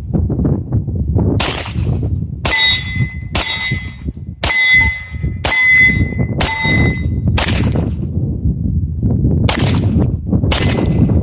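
Beretta M9A3 9mm pistol fired one-handed: about nine shots, roughly one a second, with a longer gap near the end, and a short ringing tone hanging after several of them. Wind rumbles on the microphone underneath.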